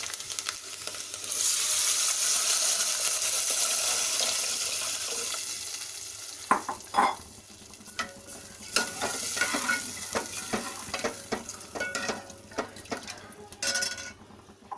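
Water poured into a pan of hot ghee with fried dry fruits: a loud sizzling hiss starts about a second in and dies away over several seconds. It is followed by scattered clinks and knocks of a spoon against the pan.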